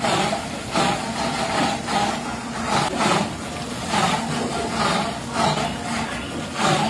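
Water splashing and sloshing in a large metal pot as handfuls of spinach leaves are plunged in, stirred and lifted out dripping, in repeated swishes about once a second. A steady low hum runs underneath.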